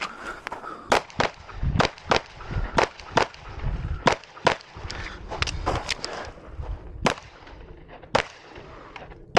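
A 9mm pistol fired about fourteen times in a course of fire, mostly in quick pairs with short pauses between them, each shot sharp and echoing.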